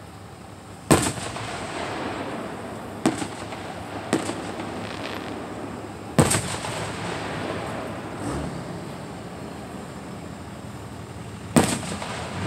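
Aerial firework shells bursting at a distance: five sharp booms, each trailed by a rolling echo, the loudest about a second in, at about six seconds and near the end.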